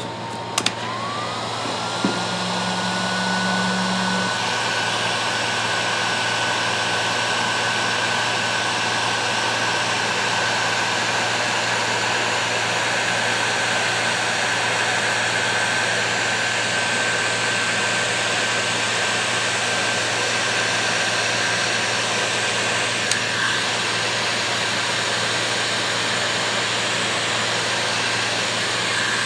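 Heat gun blowing steadily. Its motor whine rises in pitch over the first couple of seconds as it spins up, then holds.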